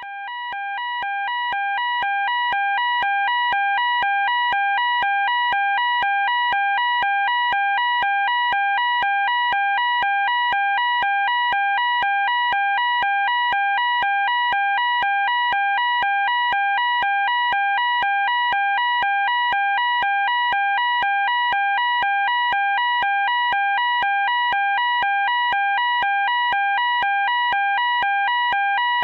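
Electronic fire alarm sounding a two-tone warble, switching rapidly back and forth between a lower and a higher tone several times a second. It fades in over the first few seconds, then keeps going at a steady, loud level.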